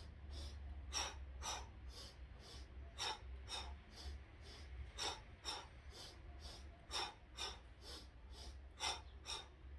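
Forceful, rhythmic yogic warrior breathing (a kriya yoga breath): a woman's sharp breaths taken in two short strokes in and two short strokes out, the exhales through the mouth, about every half second, over a steady low hum.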